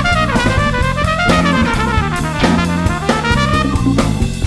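Funk instrumental played by a band: a trumpet plays a lead line over a drum kit groove and a steady bass part.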